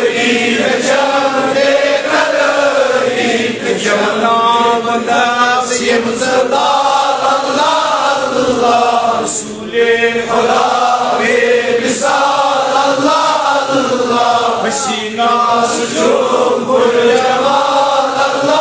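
A man's voice chanting Islamic devotional verse in a slow, melodic line, with long held notes that waver in pitch.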